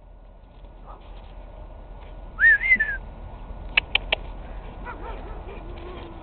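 A person whistles once, a short note that rises and then levels off, calling the dog in. About a second later come three quick, sharp clicks.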